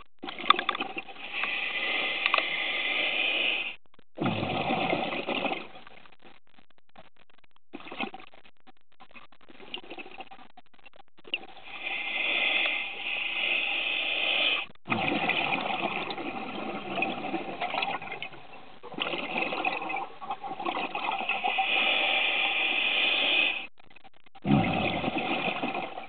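Scuba diver breathing through a regulator, the air rushing and bubbling in long bursts of a few seconds each, with a quiet spell of several seconds between them.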